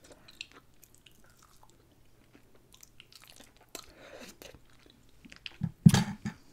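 Close-miked chewing of barbecue food: soft wet mouth clicks and crackles, with a louder thump near the end.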